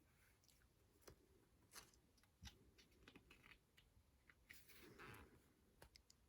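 Near silence with faint handling of a photobook: a few soft clicks and taps, and a brief rustle of a page about five seconds in.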